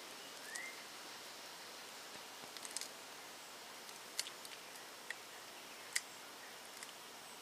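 Faint rustling of papery garlic skins as hands crumble a garlic head, with a handful of light, separate clicks as the tiny bulb-cloves break loose and drop into the pot of beans, against a steady low hiss.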